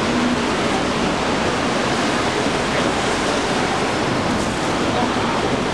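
Steady, even rushing din of downtown city street ambience, with no single distinct sound standing out.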